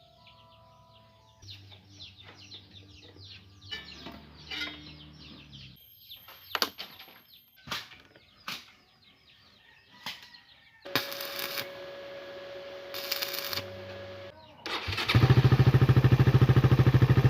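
Birds chirping, then a few sharp clicks, then a hissing mechanical noise with a steady tone. About three-quarters of the way in, a motorcycle engine starts running loudly with a fast, even pulse.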